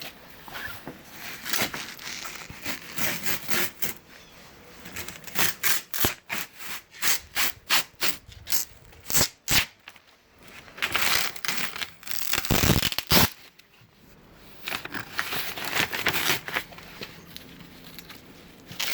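Peel ply fabric being ripped off a freshly cured fiberglass roving-and-mat layup: irregular tearing and crackling, some pulls short and quick, a few longer and steadier.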